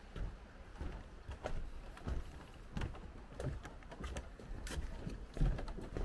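Footsteps on a wooden boardwalk: an irregular run of knocks from people walking on the planks.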